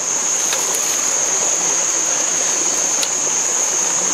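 Steady rushing of flowing stream water, with a continuous thin high-pitched whine over it and a couple of faint clicks.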